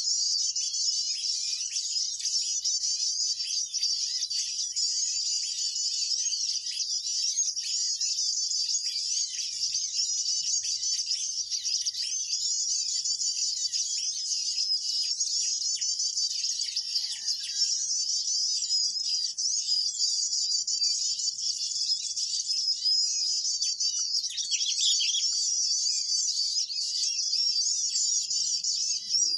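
Dense, continuous high-pitched chirping and twittering of many small birds calling at once: a bird-lure call used to draw in mantenan birds.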